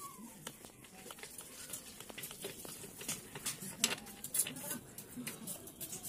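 Scattered light clicks and taps from a hand gripping and unscrewing the engine oil filler cap on a Yamaha Mio Soul scooter, with a few sharper ticks about four seconds in.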